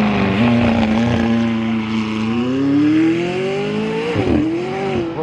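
McLaren twin-turbo V8 pulling away and accelerating. The engine note holds steady for about two seconds, then climbs in pitch, with a brief dip about four seconds in like a gear change.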